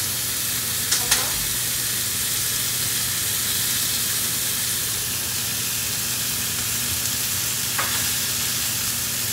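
Shrimp frying in olive oil in a pan, a steady sizzle. A couple of short clicks come just after a second in, and another near the end.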